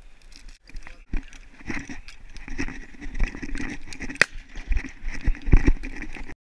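Hurried footsteps crunching and swishing through dry grass, with irregular knocks and rustling that grow louder, then cut off suddenly near the end.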